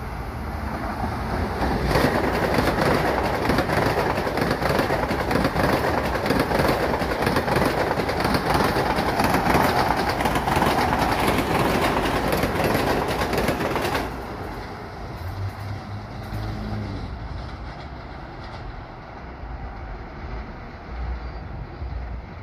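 Long Island Rail Road train passing by: a loud rush of wheels on rail with quick clicks running through it, swelling about two seconds in and cutting off suddenly about twelve seconds later.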